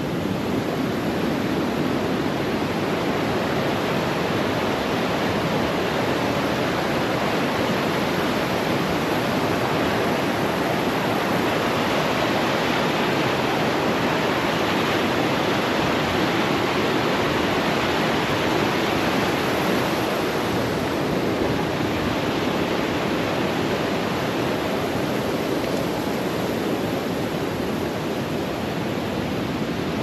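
Waterfall rushing: a steady, dense sound of falling water that does not change.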